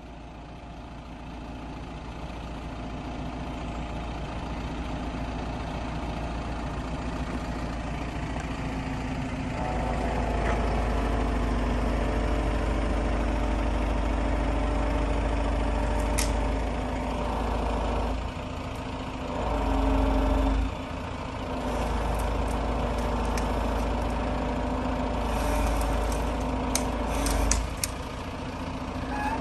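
Truck engine running while its truck-mounted hydraulic crane lifts and swings a load of cut hedge. The sound grows louder over the first ten seconds or so, then swells and drops several times as the crane works, with a few sharp clicks near the end.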